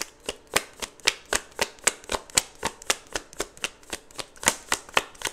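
Tarot cards being shuffled by hand: a steady run of quick soft slaps, about four or five a second.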